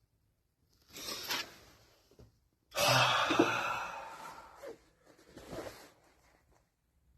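A person sighing heavily: three breathy exhales, the middle one longest and loudest.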